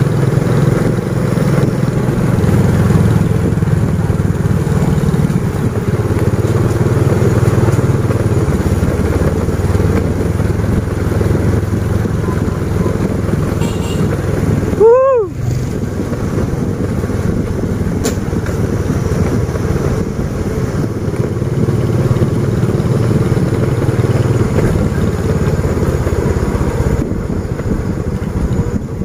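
Small motorcycle engine running while riding along, its note shifting up and down with the throttle. About halfway through, a short, loud, rising pitched call cuts in over it.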